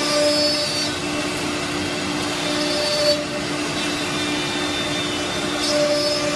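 CNC router cutting melamine-faced board, its spindle and dust extraction running together: a steady whir with a higher whine that drops out and comes back a couple of times as the cut goes on.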